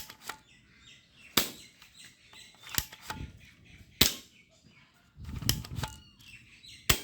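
Toy air gun firing repeatedly: five sharp snaps, a little over a second apart, with a short stretch of low noise between the last two.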